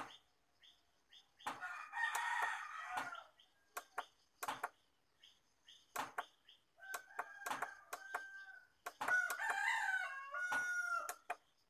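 Roosters crowing: a crow about two seconds in, another from about seven seconds, and the loudest near the end, with scattered sharp clicks in between.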